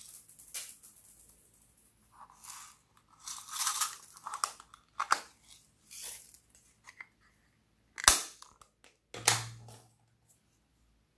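Gold sequins shaken out of a small plastic case onto slime, with short rustles and plastic clicks from the case. A sharp plastic snap comes about eight seconds in, followed by a knock about a second later.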